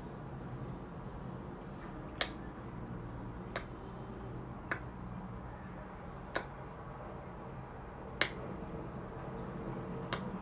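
Tongue clicks: the tongue is pressed flat against the roof of the mouth and pulled down hard, popping six times at uneven gaps of about one and a half to two seconds. This is a tongue-and-palate strengthening exercise against snoring, where a louder click means a stronger repetition.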